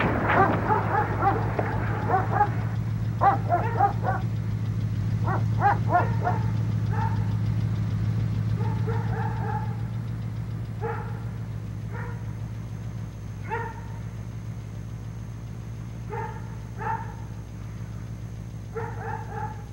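A dog barking again and again, in quick runs over the first several seconds and then in sparser single barks, over a steady low hum.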